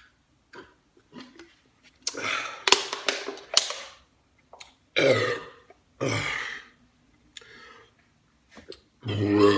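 A man belching and catching his breath just after shotgunning a beer: faint clicks at first, then several loud breathy bursts, ending in a long, deep belch near the end.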